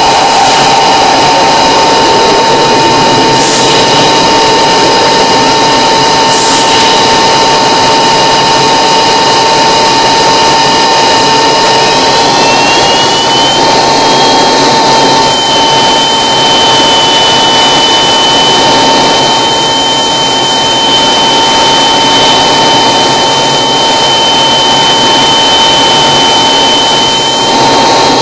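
Light aircraft's engine and propeller running loud and steady, heard from the cockpit as it taxis. A high whine in the engine note rises in pitch about twelve seconds in, and again near the end.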